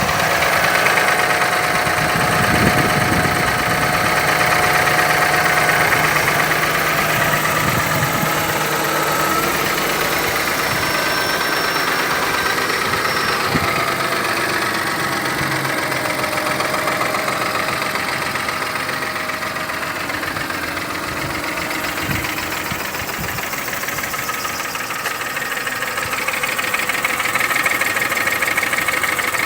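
Mercedes M272 V6 engine running at a steady idle with a knocking noise, the known M272 knock, which the owner puts down to either a stretched timing chain or scored cylinders.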